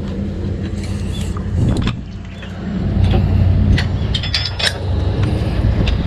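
An engine running steadily, with sharp metallic clinks and taps over it; it dips briefly about two seconds in and runs a little louder from about three seconds in.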